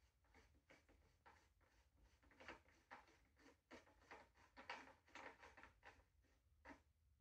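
Near silence with faint, irregular rustles and light clicks of hands handling an electric scooter's stem and handlebar.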